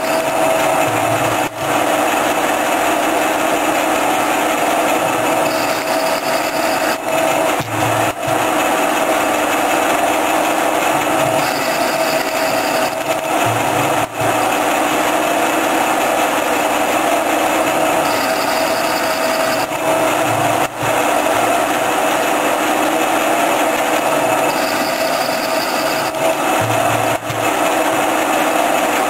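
Lathe cutting a screw thread in a steel bar with a single-point tool, running steadily with a held tone. A brief dip and change repeat about every six and a half seconds, one for each threading pass.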